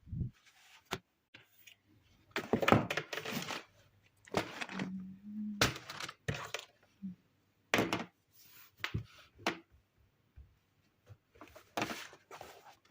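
Irregular handling noises in a small room: short knocks and thunks, and rustling, crinkling bursts like paper or objects being moved, with brief pauses between them.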